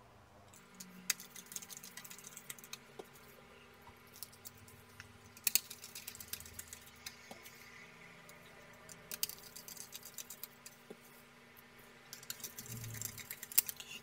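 Small hand screwdriver driving screws back into a graphics card's plastic fan shroud: faint, irregular clicks and light taps, bunched about five seconds in, around nine seconds in and near the end.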